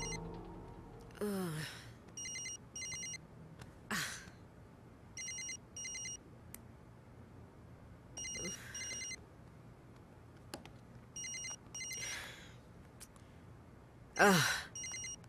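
A telephone ringing in short double rings about every three seconds, while a woman woken from sleep groans and sighs between the rings; her loudest groan, falling in pitch, comes near the end.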